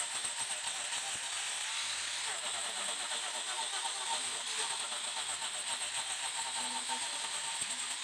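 Handheld angle grinder running steadily with a high whine, its disc grinding into a wooden carving to shape it.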